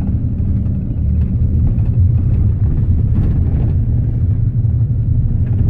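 Intercity bus under way, heard from inside the passenger cabin: a steady, loud low rumble of engine and road noise.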